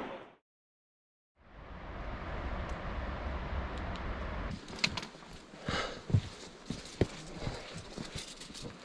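About a second of silence, then a steady low rumbling noise. From about halfway through come footsteps crunching and knocking on loose rock, with light clinking of gear.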